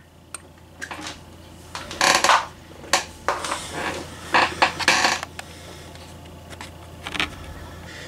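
Scattered short clinks, clicks and rustles of hands handling the horn strobe's power leads and small metal parts as the unit is unplugged, over a faint steady low hum.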